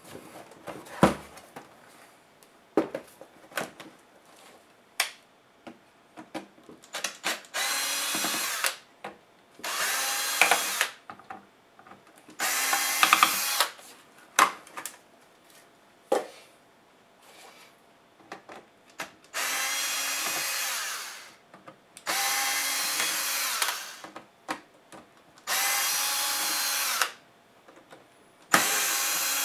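Electric screwdriver whirring in about seven short runs of one to two seconds as it backs screws out of a laptop's bottom case, with clicks and knocks of plastic panels and parts being handled between the runs.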